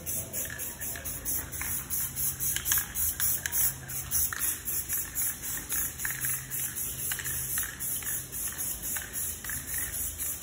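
Background music with a steady, quick hi-hat beat over a low bass line.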